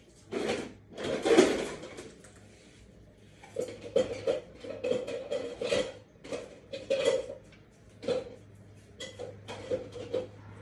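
Irregular short clatters and knocks of hard objects, a dozen or so, some with a brief ringing note, the loudest near the start.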